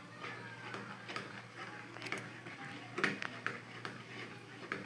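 A few faint, sharp clicks and taps over a quiet background, several of them bunched about three seconds in.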